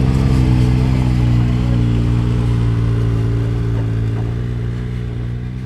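Polaris RZR side-by-side UTV engine running at a steady pitch as the machine drives past and away, its sound fading gradually.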